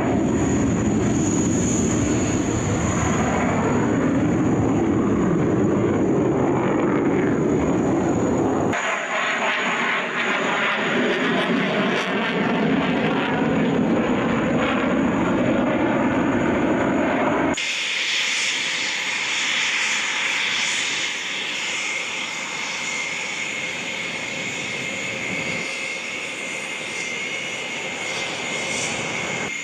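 Fighter jet engine noise from a jet flying a display. The sound changes abruptly twice. In the last third it gives way to a quieter Eurofighter Typhoon's jet engines running on the ground with a steady high whine.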